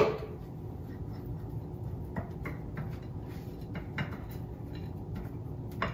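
A sharp knock as a plastic blender cup is set down on the counter, then a few faint taps and soft rubbing as hands work seasoning into raw steaks on a plate.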